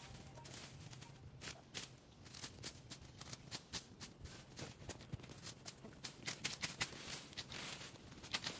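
Faint, irregular crackling and rustling: many sharp little clicks, several a second, thickening near the end.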